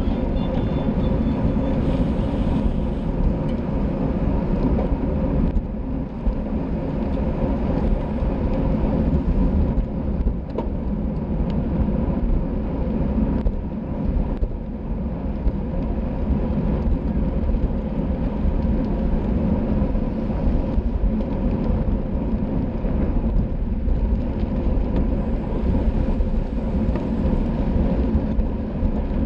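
Wind rushing over a racing cyclist's camera microphone at speed: a steady, heavy rush with a faint steady hum underneath.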